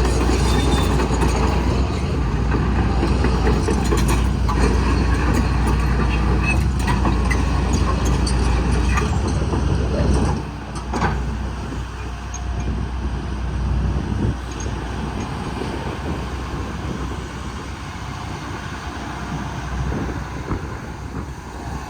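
Hitachi ZAXIS 200-5G hydraulic excavator's diesel engine running steadily, with a low hum. The sound drops to a noticeably lower level about halfway through, and a few knocks follow.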